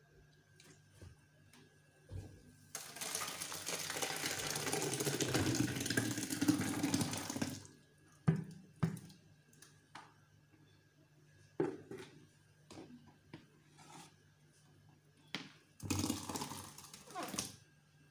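Blended pineapple pulp and juice poured from a plastic bucket into a metal pot: one steady pour lasting about five seconds, then a shorter pour near the end, with a few sharp knocks in between.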